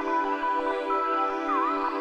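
Electronic background music: sustained synthesizer chords with a few short melodic pitch slides.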